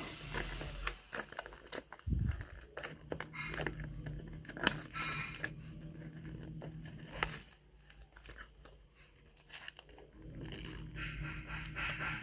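Close-miked eating: crunching and chewing in a run of short, sharp crackles, with some crinkling. It goes quieter for a couple of seconds past the middle.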